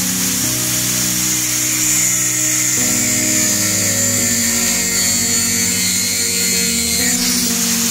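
Angle grinder with a cut-off disc cutting into a steel hex nut: a steady, high whine and hiss of the disc grinding through the metal. Background music with changing chords runs underneath.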